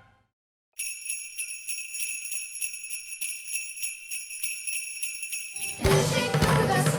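Sleigh bells shaking alone in a steady rhythm, opening a Christmas song; near the end a full band comes in under the bells.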